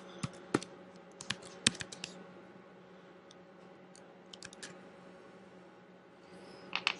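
Typing on a computer keyboard: a quick run of about eight keystrokes in the first two seconds, a few more keystrokes around the middle, and a couple near the end.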